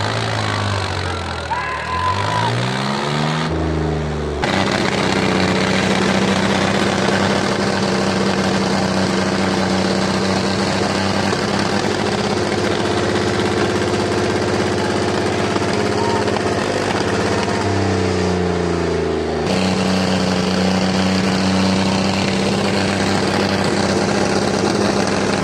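Diesel tractor engine revved hard, its pitch climbing over the first few seconds and then held steady at high revs. About three-quarters of the way through, the revs dip and climb again briefly, then hold high.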